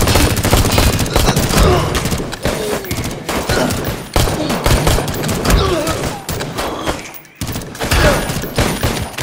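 Heavy gunfire in a film shootout, shots from a submachine gun and a pistol coming thick and fast, with a brief lull about seven seconds in.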